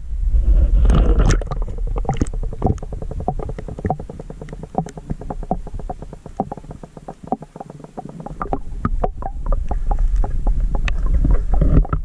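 Muffled underwater sound from a camera held in a river: a heavy low rumble of moving water with many small sharp clicks and bubbling as a hand holds a trout in the current. The rumble eases off around the middle and comes back strongly later.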